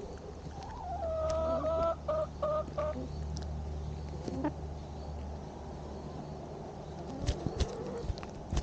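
A chicken calls about a second in: a rising note, a held tone, then a few short broken notes over about two seconds. Near the end come sharp taps as hens peck at food right by the microphone.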